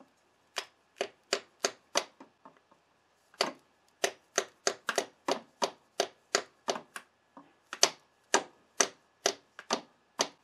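Light mallet taps on the Honda VTX1800's aluminium clutch cover, about three a second. There are five taps, a short pause, then a long run of about twenty more. The taps are trying to break the cover's RTV sealant loose, and the cover is not coming free.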